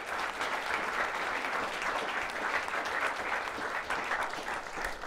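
Audience applauding steadily with many hands clapping, easing off near the end.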